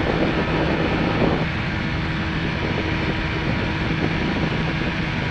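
Airbike ultralight airplane's engine and propeller running steadily in flight, a constant drone.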